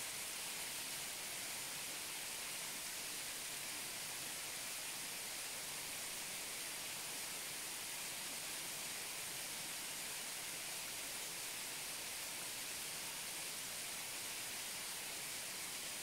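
Waterfall heard close up: a steady, even rush of falling water, bright and hissy, with little low rumble.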